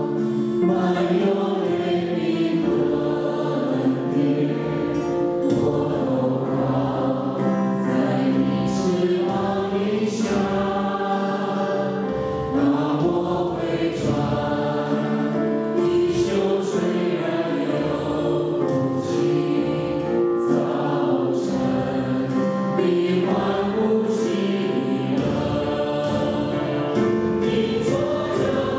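A worship team of two women and two men singing a Mandarin Christian worship song together into microphones, steadily throughout.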